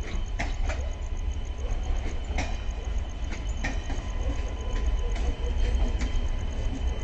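Indian Railways passenger coaches of a slow-moving shunting train rolling past, their wheels clicking irregularly over rail joints, over a steady low rumble.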